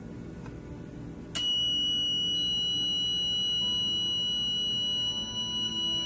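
Mircom FX-2000 fire alarm control panel's piezo buzzer switches on with a click about a second and a half in and sounds one steady, high-pitched continuous tone. It comes on as the main board's reset pins are being bridged to restart the panel.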